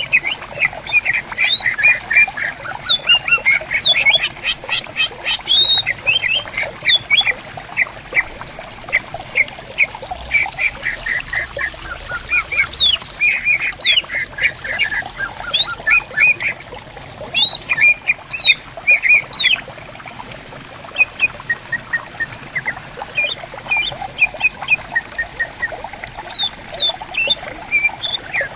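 Cucak ijo (green leafbirds) singing back and forth in rapid chattering runs of high chirps and short whistles, over the gentle gurgle of a running stream. The calls thin out for a few seconds about two-thirds of the way through.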